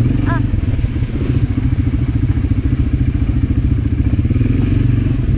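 Automatic (twist-throttle) quad bike engine running steadily while the ATV rides along, heard from the rider's seat as a loud, low, fast-pulsing drone.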